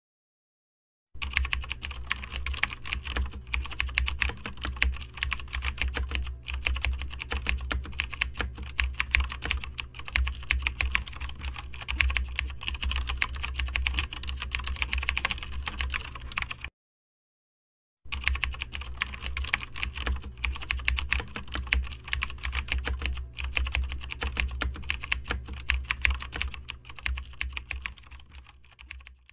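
Computer keyboard typing sound effect: rapid, continuous keystroke clicks that stop for about a second midway, then start again.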